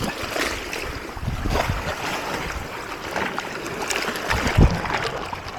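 Seawater sloshing and splashing close by, with trickling and low gusts of wind buffeting the microphone.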